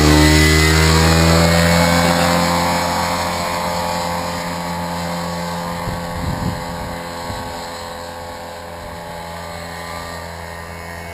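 Paramotor engine and propeller drone, dropping in pitch as it passes close at the start, then holding steady and slowly fading as it flies away. Wind noise on the microphone runs under it.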